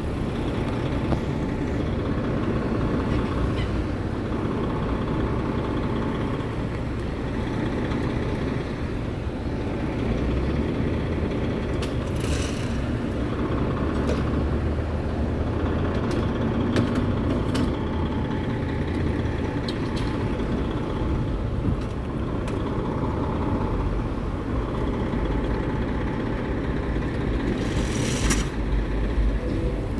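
Fire engine's diesel engine idling steadily, with two brief hisses, one about twelve seconds in and one near the end.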